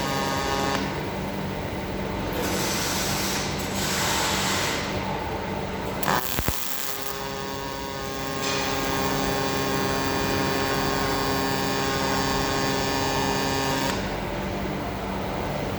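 Robotic MAG welding of 3 mm stainless steel: a steady arc hiss and buzz, overlaid with the whining tones of the cobot's drives. Two sharp clicks come about six seconds in.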